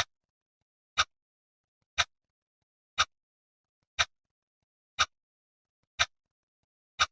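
Clock ticking steadily, one sharp tick each second, with complete silence between ticks.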